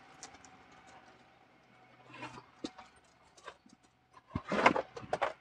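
Clicks, knocks and rustling from things being handled inside the cabin of an electric tricycle, with a louder scraping rustle near the end.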